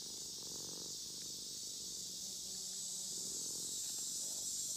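Domestic cat purring close to the microphone, a low rumble that swells and fades in cycles of about a second, with a steady high hiss behind it.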